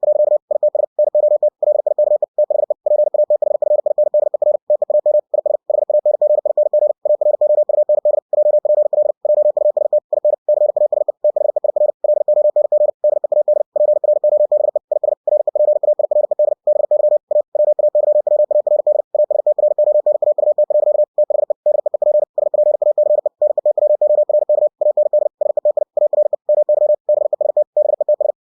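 Computer-generated Morse code (CW) at 60 words per minute: a single steady tone of about 600 Hz keyed on and off very fast. Brief silent gaps mark the spaces between words.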